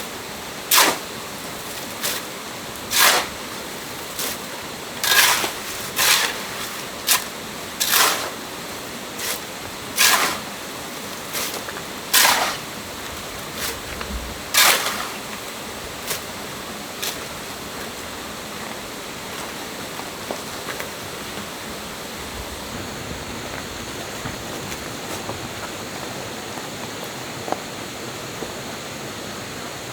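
A run of sharp chopping strikes, roughly one a second, that stops about halfway through, over a steady rush of stream water.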